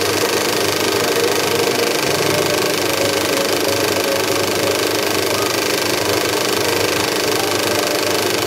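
1959 National 35 mm cinema projector running steadily, the even mechanical noise of its motor and film-transport mechanism.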